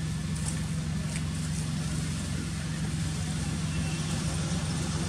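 An engine running steadily, a continuous low hum with a hiss over it.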